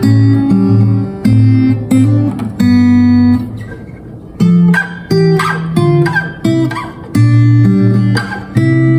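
Cort L100-O acoustic guitar with 12-gauge D'Addario strings being played in strummed chords. The chords are struck and left to ring, with short breaks between them and a softer passage about four seconds in.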